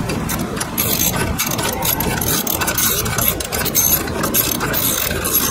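Hand socket ratchet on a long extension clicking in a rapid, uneven run as it turns a 12 mm bolt into the scooter's swing arm mount.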